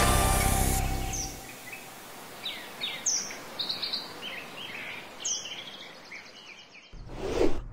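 Birds chirping in short, scattered calls as background music fades out. A brief swelling noise comes near the end.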